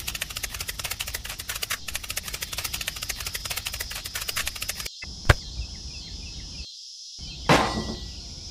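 Cartoon footstep sound effect: rapid, even ticking clicks, about eight to ten a second, which stop about five seconds in. After that a steady high hiss remains, with a single sharp click and a short whoosh near the end.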